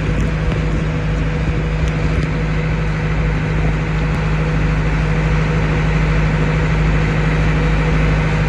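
Passenger boat's engine running at a steady cruise, a constant loud drone with a strong low hum, over the rush of wind and water.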